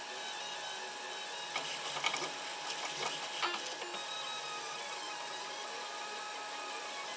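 3D printer's stepper motors running mid-print, a steady whine with tones that glide up and down as the print head moves. A brief flurry of ticks and clicks comes about a second and a half in and lasts about two seconds.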